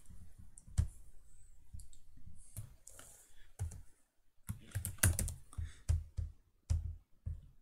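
Typing on a computer keyboard: a few scattered keystrokes, then a quicker run of them in the second half.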